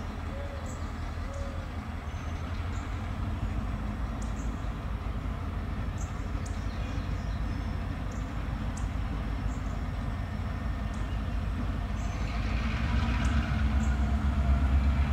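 Diesel-electric locomotives running in a yard with a steady low engine drone that grows louder over the last few seconds as one locomotive rolls closer.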